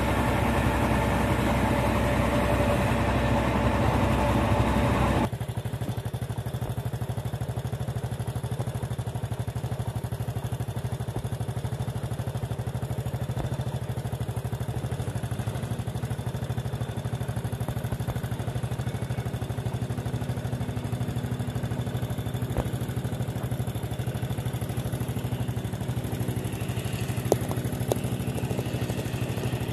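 Diesel engine of a tracked rice combine harvester running, loud and close for about the first five seconds, then cutting suddenly to a steadier, quieter drone of the machine working at a distance while it harvests rice.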